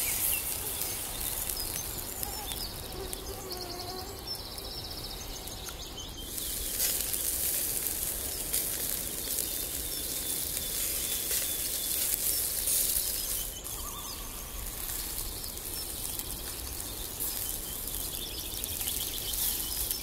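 Quiet outdoor ambience: a steady hiss with a few bird chirps and trills, the clearest a few seconds in. The hiss swells slightly from about six seconds in and settles again near fourteen seconds.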